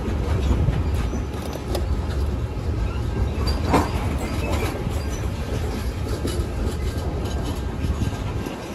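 Freight cars (gondolas and covered hoppers) rolling past at a level crossing: a steady low rumble of steel wheels on rail, with a few sharp clacks over the rail joints, the loudest about four seconds in. The rumble eases off near the end.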